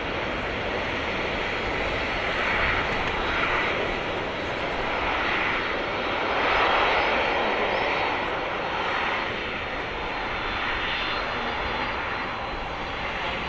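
Engines of an All Nippon Airways Boeing 767-300ER jet airliner running: a continuous rushing noise that swells and eases in slow waves, loudest about halfway through.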